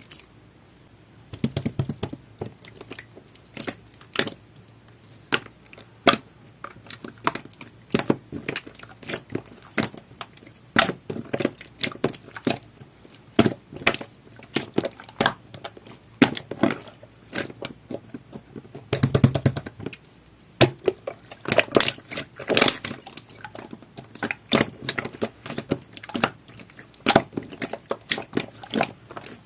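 Jelly-textured slime being squished and pressed by hand, giving a stream of irregular sharp pops and clicks, with denser squelching bursts about two seconds in and again around nineteen seconds.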